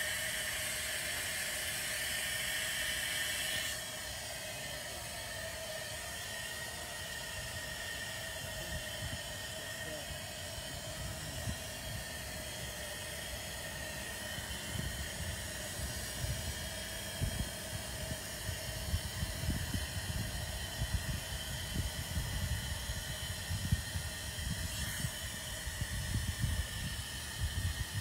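A steady hiss that drops in level about four seconds in, with a few faint steady tones in it. In the second half, wind gusts buffet the microphone with an uneven low rumble.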